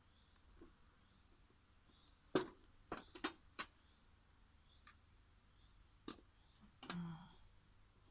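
Hand tools working on the end of a power cable: about seven irregular, sharp clicks and knocks, with a duller knock near the end.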